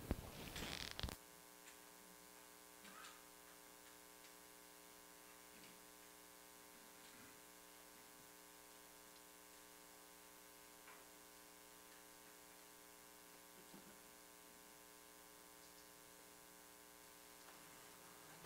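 Near silence: a steady electrical mains hum, with a short faint noise in the first second.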